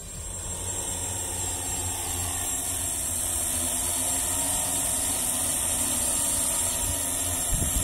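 Electric motors and propellers of a multirotor drone spinning steadily at idle on the ground, a steady hum that builds slightly in level.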